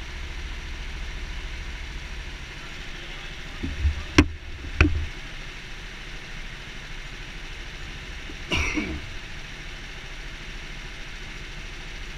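Steady low engine-like hum of go-karts standing in the pit lane of an indoor track. Over it, a person clears their throat with a few low thumps and two sharp clicks about four seconds in, and makes another short throat sound with a falling pitch about eight and a half seconds in.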